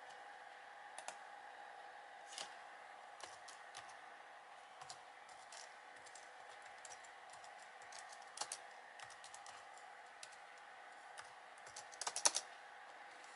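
Typing on a computer keyboard: scattered, irregular key clicks, with a quick cluster of clicks near the end, over a faint steady hum.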